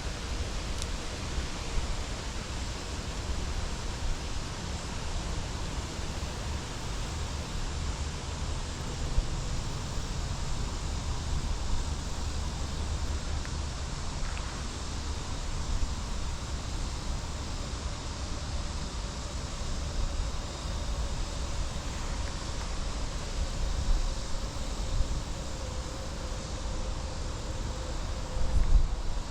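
Outdoor ambience dominated by wind buffeting the microphone, a steady hiss with a fluctuating low rumble, with a faint steady drone from about halfway in to near the end and a few small clicks.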